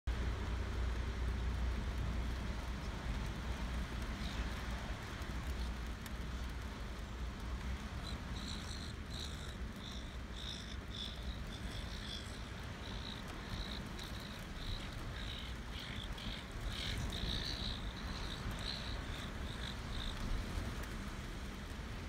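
Steady outdoor rumble and hiss of wind and rough surf. From about eight seconds in until about twenty seconds, a run of short, high bird calls sounds over it.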